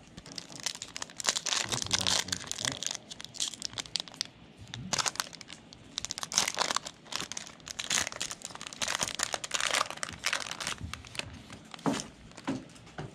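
Crinkling and tearing of a Panini basketball card pack's wrapper being opened by hand, a dense run of crackles.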